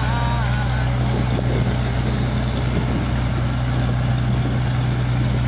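A steady, unbroken low engine drone with a hiss over it; the last note of a man's song trails off in the first half second.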